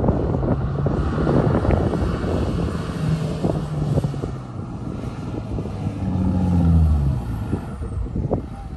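A 4WD vehicle's engine pulling and revving, its note rising and falling, with knocks and rattles from the vehicle over the rough track. The engine is loudest about six to seven seconds in, then drops away.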